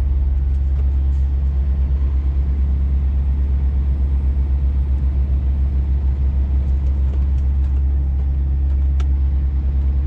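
Scania truck's diesel engine running with a steady low drone and an even throb, heard from inside the cab as the truck drives slowly on a snow-covered road.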